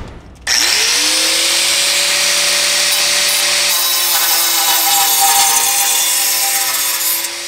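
Angle grinder with a cut-off disc spinning up about half a second in, then cutting the steel brake dust shield behind a car's front hub: a steady whine over a loud hiss.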